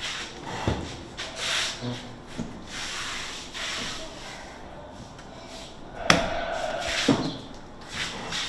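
Rustling and rubbing of fabric against a cushioned wooden armchair as a person shifts in it and gets up, with a sharp knock about six seconds in.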